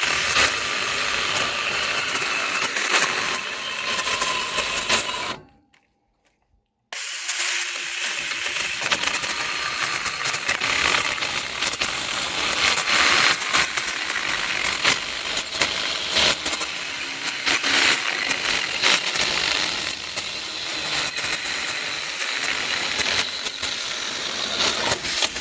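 Saker battery-powered mini chainsaw running and cutting through wood. It winds down and cuts out about five seconds in, then starts again about a second and a half later and runs steadily on.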